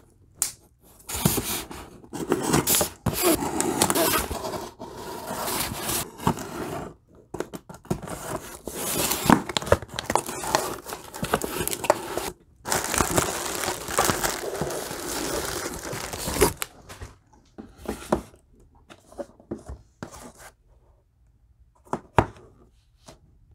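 Packing tape tearing off a cardboard shipping box, the flaps being pulled open and bubble wrap crinkling around the package inside. After about sixteen seconds the noise thins out to quieter handling of the boxes, with a few sharp ticks.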